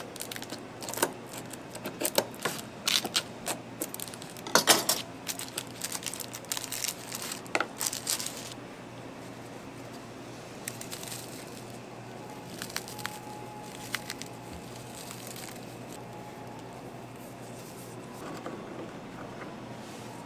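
Knife chopping and tapping on a plastic cutting board: a run of quick, irregular sharp knocks for the first eight seconds or so, the loudest about four and a half seconds in. After that only a few faint scattered clicks and snaps as biscuits are broken by hand.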